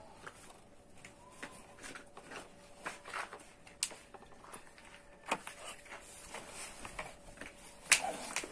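Light scattered clicks and taps of foam takeaway boxes of food being handled on a wooden table, with one sharper knock near the end.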